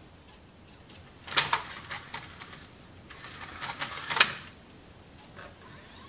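LG BD550 Blu-ray drive mechanism clicking as it loads a disc: two sharp clicks about a second and a half and about four seconds in, with a few lighter ticks between. The drive's disc clamp has just had its magnet reglued.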